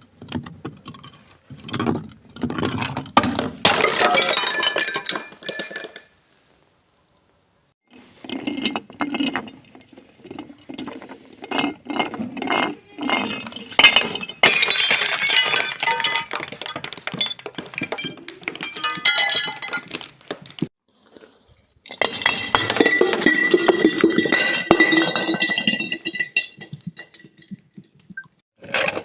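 Glass bottles being broken and crushed: shattering, clinking and crunching glass in three long bouts with short silent pauses between them.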